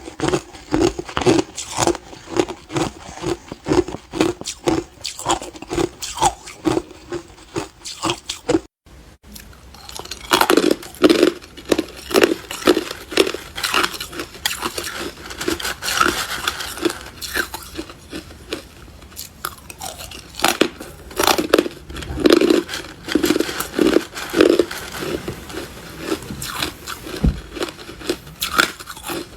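Hard clear ice being chewed and crunched in the mouth, close to the microphone: a steady run of crunches at about two a second. The sound drops out briefly about nine seconds in, then the crunching resumes.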